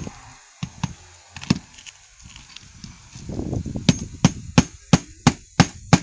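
Hammer blows on a shingle roof: a few scattered knocks, then from about four seconds in a steady run of sharp strikes, about three a second.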